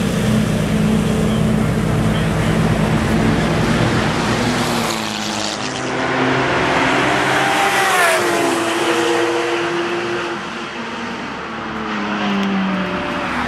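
Lamborghini Murciélago V12 engine running as the car pulls away. About eight seconds in, a car passes by fast, its engine note dropping sharply in pitch as it goes past, then falling away.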